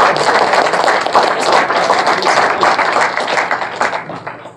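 Audience applauding in a lecture hall, a dense patter of many hands clapping that thins and fades out near the end.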